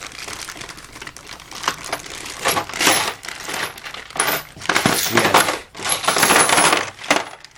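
Small metal tool-set pieces, such as sockets and hex keys, clinking and rattling against each other as they are handled, with a plastic parts bag rustling.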